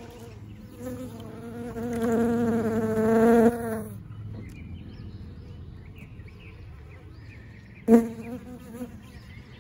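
Honeybees buzzing close by: a steady hum for about three seconds that drops away, then a brief louder buzz near the end as a bee passes.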